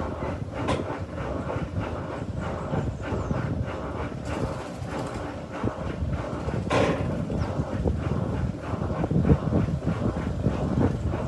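Electrolux LTD15 washing machine running its rinse on the bed-and-bath program: water and laundry churning over the motor's rumble, with a couple of sharp knocks, the louder one about seven seconds in.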